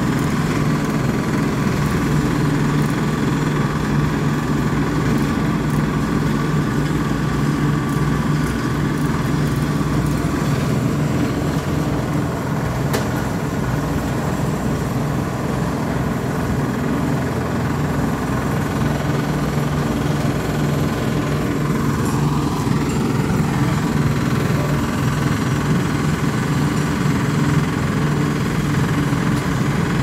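Asphalt paver's diesel engine running steadily at an even pitch.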